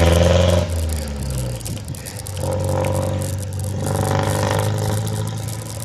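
A motor vehicle's engine running, a steady low drone that dips about two seconds in and then rises again.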